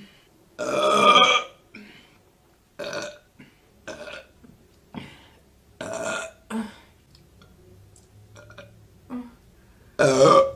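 A woman burping repeatedly, about six separate burps of varying length. The loudest and longest comes about a second in, and another loud one comes near the end, with faint small mouth clicks between them.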